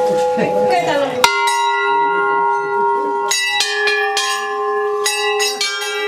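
Hindu temple bells struck again and again, several different pitches ringing on over each other, the first clear strike about a second in and a quick run of strikes in the second half. Before that, voices under a lingering bell tone.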